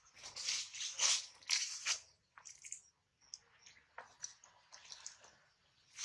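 Crunching and rustling in dry leaf litter, like footsteps, about two a second for the first two seconds, then scattered light rustles and clicks.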